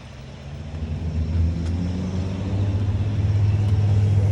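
Motor vehicle engine running with a low, steady hum that grows louder over the first couple of seconds and stays loud to the end.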